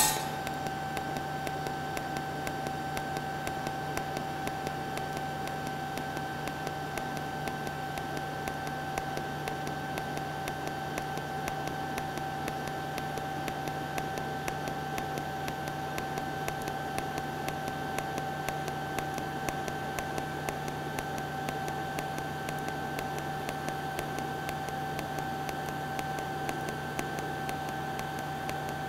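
Pulsed DC TIG welding arc from an ESAB Rogue 200iP Pro, set to pulse twice a second, burning steadily on a steel coupon with no filler metal: an even hiss with a steady high whine.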